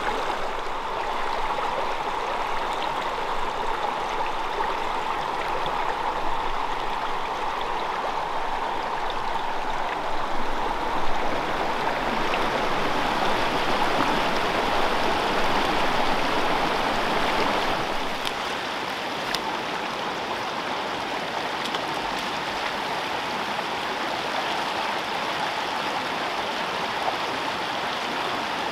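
Small freestone mountain stream running over rocks: a steady rush and gurgle of water. The sound brightens about twelve seconds in and eases a little around eighteen seconds.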